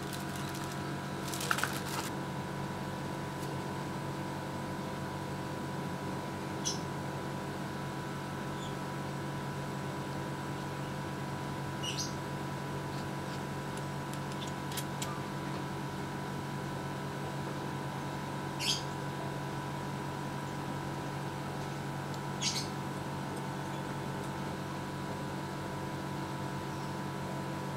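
Steady droning hum of several held tones. About a second and a half in, plastic packaging crinkles as it is handled, and four short high chirps come at intervals of several seconds.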